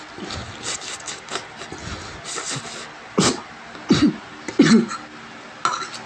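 A person's short coughs and throat-clearing, four of them in the second half, between soft clicks and scrapes of a fork on a plate of noodles.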